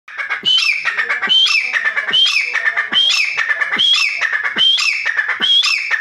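Grey francolin calling loudly: the same sharp phrase repeated rhythmically, about once every 0.8 seconds, each phrase topped by a high piercing note.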